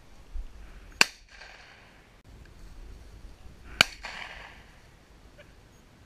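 Two shotgun shots, about three seconds apart, each with a short echo trailing it.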